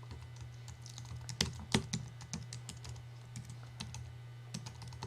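Typing on a computer keyboard: irregular key clicks as an email address is entered into a form, over a low steady hum.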